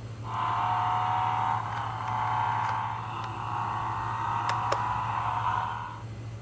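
Spin Master Batmobile toy playing its electronic engine sound effect through its small speaker: a thin, tinny engine rumble that starts just after the beginning, runs for about six seconds, and stops shortly before the end. There is a small click about two thirds of the way through.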